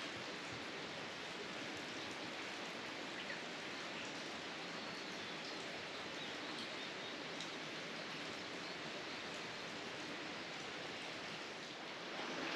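Running water: a steady, even rushing hiss, with a couple of faint ticks.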